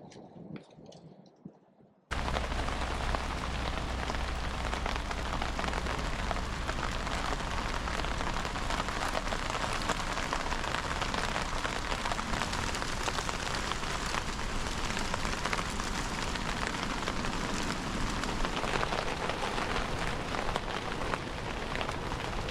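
Steady rain falling as a dense, even hiss that starts abruptly about two seconds in, after a few faint clicks.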